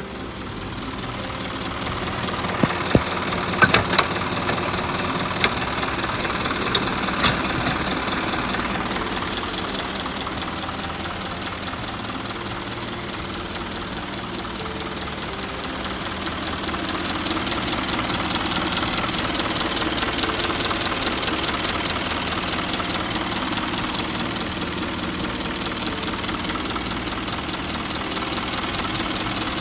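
Isuzu Elf truck's engine idling steadily, heard close with the cab tilted forward over it, with a few sharp clicks in the first several seconds.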